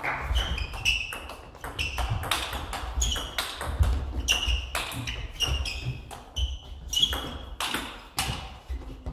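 Table tennis rally: the celluloid-type plastic ball clicking in quick succession off the rackets and the table, some hits with a short high ping, over low thumps of footwork on the hall floor.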